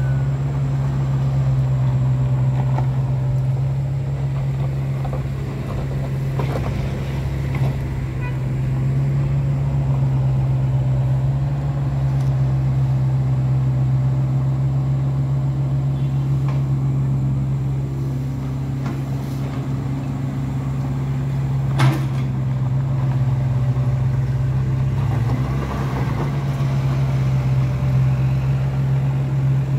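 Hitachi compact excavator's diesel engine running with a steady low drone as it works, spreading gravel with its bucket. One sharp click stands out about twenty-two seconds in.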